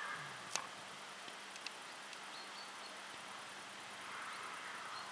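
Faint open-air background noise with a few sharp, scattered clicks, the strongest about half a second in, and faint short high chirps.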